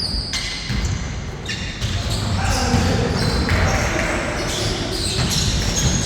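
Basketball bouncing on an indoor court during play, a series of sharp bounces in a reverberant hall.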